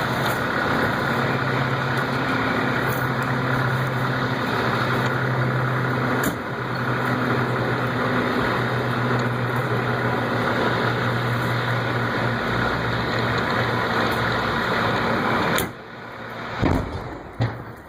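Engine running steadily with a low hum, cutting off abruptly near the end, followed by a single short, loud bang and a smaller knock.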